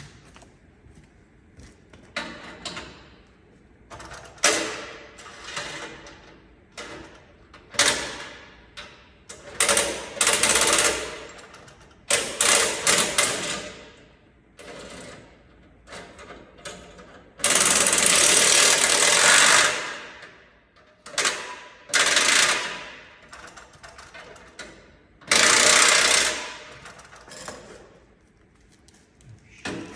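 Hand socket ratchet clicking in repeated bursts of a second or two as bolts on the exhaust brackets are turned, the longest bursts about two seconds long.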